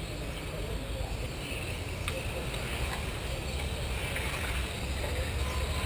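Electric 1/10-scale RC formula cars running on the track, a faint rising and falling whine from their motors and tyres over a steady low rumble, with a single click about two seconds in.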